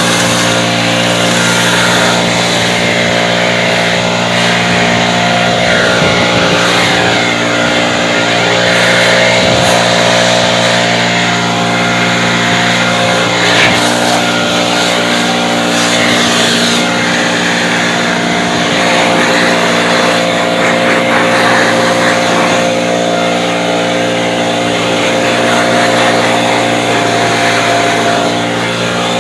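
Powered blower running steadily at a constant speed while blowing snow: a loud, unchanging motor drone with the rush of air over it.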